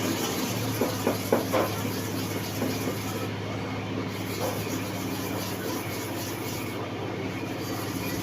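A metal clipper blade rubbed back and forth on a sharpening stone, with several scraping strokes in the first two seconds and lighter, regular strokes later, over a steady low hum.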